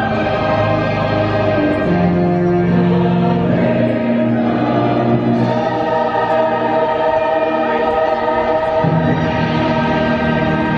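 Orchestral music with a choir singing long, sustained notes that shift in chords every second or two.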